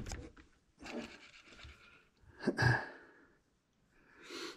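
A person breathing close to the microphone, three short breaths about a second and a half apart, with a sharp click right at the start.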